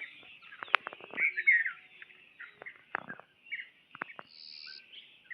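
Birds chirping in short calls, with a brief high whistle near the end, over a faint steady high hiss; several short clicks or knocks fall in between.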